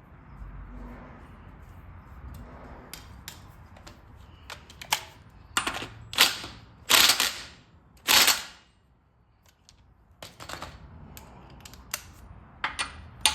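Impact wrench running in short bursts of hammering, the three loudest about six, seven and eight seconds in. It is tightening the pinion nut of a Sterling 10.5 rear axle to build up pinion bearing preload. Scattered sharp clicks of tools come between the bursts.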